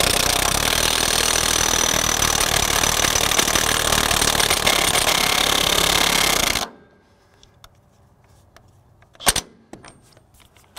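Craftsman V20 brushless high-torque 1/2-inch cordless impact wrench hammering on a tractor wheel lug nut for about seven seconds, then cutting off suddenly. A single sharp metal knock follows a few seconds later.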